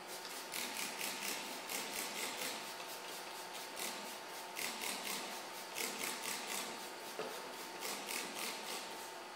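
Hand pump spray bottle being squirted again and again at a car's side window glass: quick hissing sprays, about four a second, in several runs with short pauses between them.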